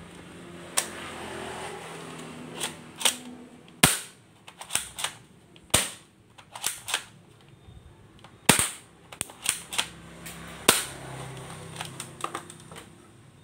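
Plastic toy cocking rifle being handled: about a dozen sharp plastic clicks and snaps at irregular intervals as the drum magazine is fitted and the parts are worked, over soft handling rustle.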